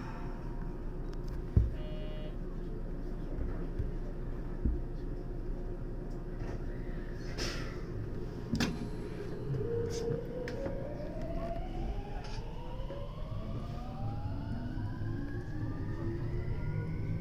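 JR West 521 series electric train pulling away from a station: after a steady standing hum with a few clicks, the traction motors' whine sets in about halfway through and climbs steadily in pitch as the train accelerates.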